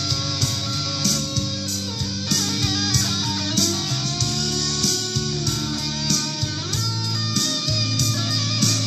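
Electric guitar, a Gibson Supreme, playing a melody with a bend or slide about two-thirds of the way in, over a backing track of bass and drums with a steady beat.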